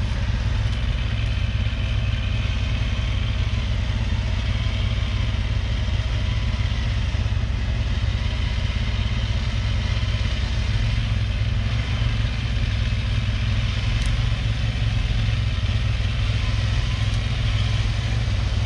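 Land Rover Discovery's engine idling steadily close at hand, with an ATV's engine running nearby.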